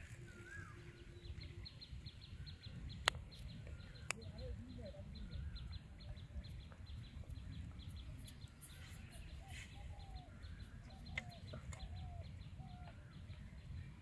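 Birds calling faintly in short, scattered chirping and clucking notes over a low rumble, with two sharp clicks about three and four seconds in.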